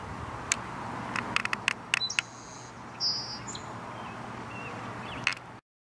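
A few short, high bird chirps over a steady outdoor hiss, with a run of sharp clicks about half a second to two seconds in. The sound cuts out just before the end.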